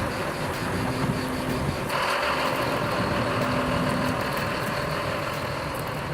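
A heavy diesel construction machine's engine running steadily. A short hum comes and goes in the first few seconds, and the sound turns harsher about two seconds in.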